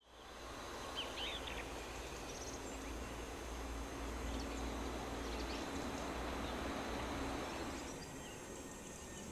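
Outdoor countryside ambience: a steady low rumble that eases near the end, with a small bird chirping a few times about a second in and faintly again later.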